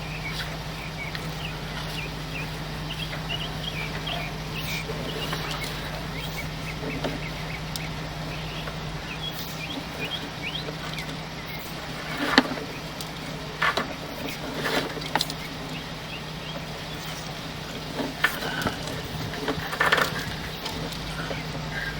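Birds chirping over a steady low hum, with a few sharp knocks a little past the middle and again near the end.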